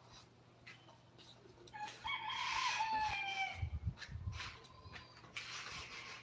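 A rooster crowing once, starting about two seconds in and lasting under two seconds, its pitch falling at the end; a few low thuds follow.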